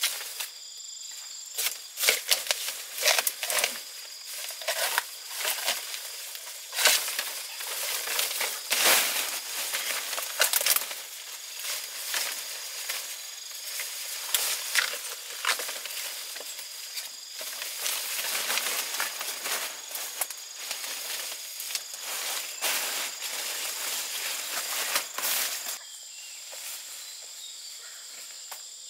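Dry plant material crackling, snapping and rustling, with many sharp cracks, busiest up to about 26 seconds in and quieter after. A steady high insect drone runs underneath.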